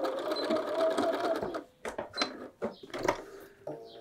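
Bernina sewing machine stitching steadily through layered canvas, sewing a pocket dividing line, then stopping about two seconds in. A few short clicks follow.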